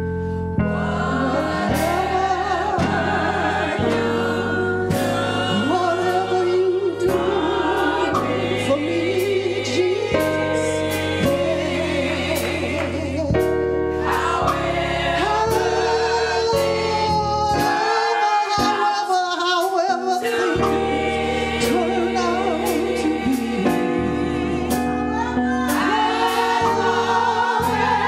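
Church gospel choir singing with band accompaniment over a steady beat. The bass drops out briefly about two-thirds of the way through.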